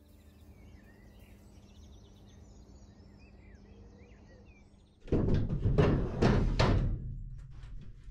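Birds chirping over quiet outdoor background sound, then about five seconds in a run of loud knocks and bangs as the doors and hatch of a steel narrowboat are opened and someone steps in.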